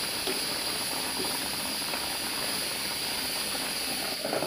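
Pressure cooker hissing steadily as it vents steam. Near the end, an aluminium lid is set back onto a simmering pot.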